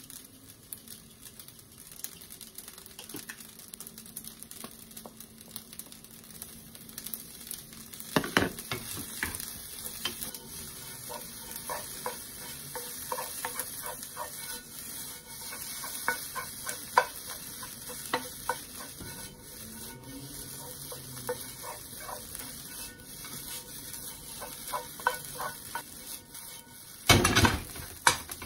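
Garlic rice frying in a non-stick pan, sizzling steadily while a wooden spatula stirs it and scrapes and taps against the pan. The stirring clicks grow busier from about eight seconds in, with a loud knock against the pan near the end.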